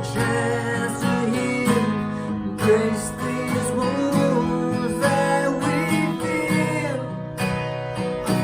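Acoustic guitar strumming a slow, somber song's instrumental break, with sustained melody notes over the chords.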